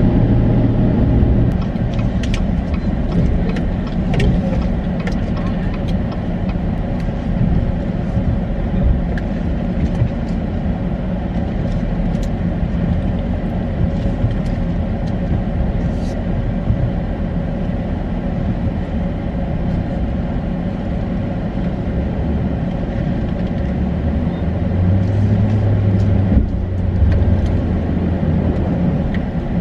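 Engine of the vehicle towing a header wagon, running steadily as heard from inside its cab during a tight turn into a driveway. There is a low, continuous rumble, with a stronger low hum a little before the end.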